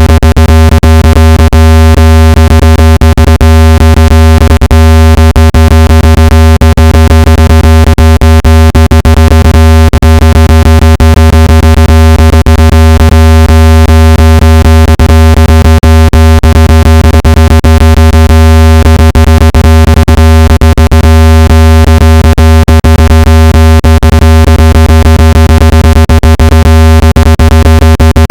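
Loud, steady low-pitched buzzing tone from a phone speaker-cleaning track, played to shake water and dust out of a phone speaker, with a rapid irregular crackle of clicks over it.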